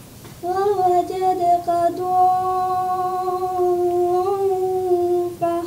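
A girl's voice chanting Quran recitation in melodic tajweed style, holding one long vowel on a nearly steady pitch with small bends for about five seconds, then starting the next syllable just before the end.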